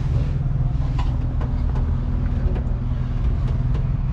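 A 1981 Datsun 620 pickup's engine idling steadily, with a few faint clicks over it.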